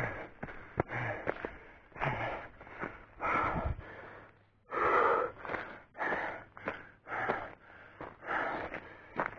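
A man breathing hard, heavy rasping breaths in and out about once a second, the loudest about five seconds in: out of breath from running up a steep hill.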